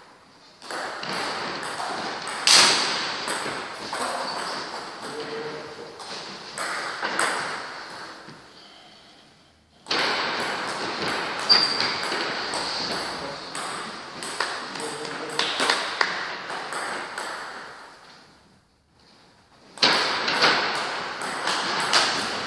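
Table tennis rallies: the ball clicking back and forth off the bats and table in quick succession, echoing in a large hall. Three rallies, with short pauses between points about nine and nineteen seconds in.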